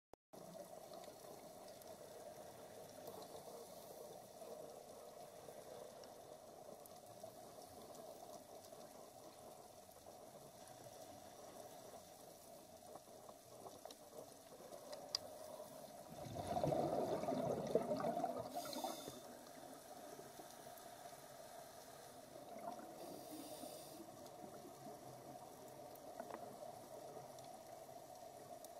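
Underwater ambience picked up through a camera housing on a scuba dive: a faint steady rushing hiss, with a louder bubbling rush about sixteen seconds in that lasts two to three seconds, as a scuba diver's exhaled bubbles vent from the regulator.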